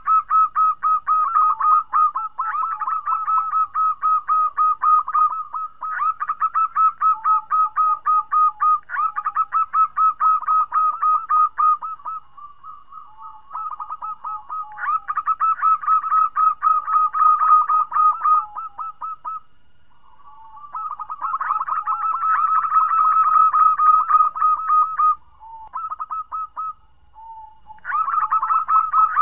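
Female zebra dove (perkutut) calling: bouts of rapid, stuttering notes repeated several times a second, each bout a few seconds long with short pauses between. This is the female's call that draws a male and brings him into breeding condition.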